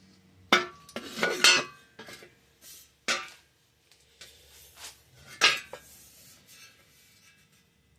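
Metal objects clanking and clinking: a string of sharp knocks with a short ring, the loudest about half a second, a second and a half and five and a half seconds in.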